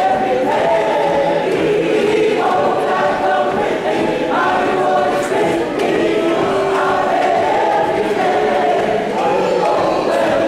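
A large group of voices singing a hymn together as a choir, in long held notes that move to a new pitch every second or two.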